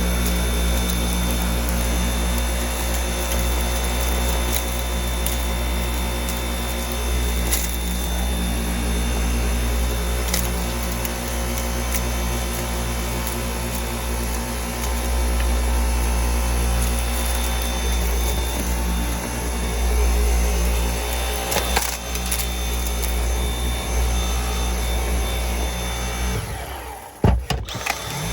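Dyson V8 cordless stick vacuum running steadily, with a few sharp clicks of grit being sucked up. Near the end its sound drops away briefly, then comes back with a sudden jolt.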